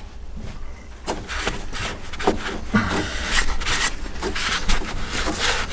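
A rag rubbing and wiping at oily engine parts in irregular strokes, starting about a second in.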